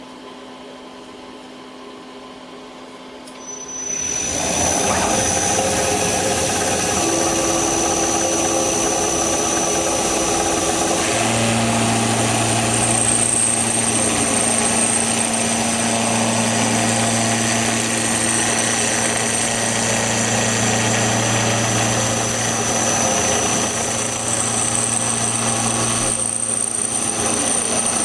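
CNC milling machine running its program: the spindle starts about three and a half seconds in, then runs steadily with a high whine while the cutter mills a nut blank clamped in a jig. A lower steady hum comes in about eleven seconds in.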